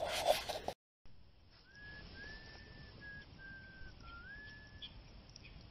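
Burning logs in a campfire giving off a thin, high whistle of escaping steam, wavering slightly in several short runs for about three seconds, with a few faint crackles.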